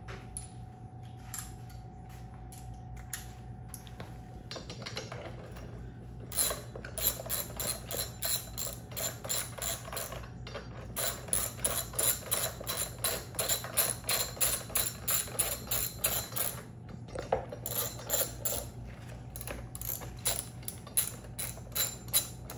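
Hand ratchet wrench with an extension clicking as it turns bolts on a metal bracket. The clicks come in three quick runs of about five a second, with short pauses between.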